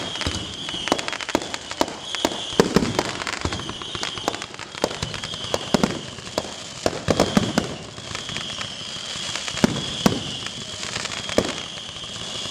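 Fireworks going off in rapid succession: a dense run of bangs and pops over continuous crackling, with a few sharper single bangs in the last third.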